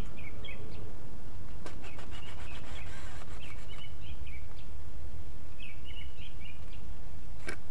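Songbirds chirping in short phrases now and then over a steady low outdoor rumble, with a couple of sharp knocks, one about two seconds in and one near the end.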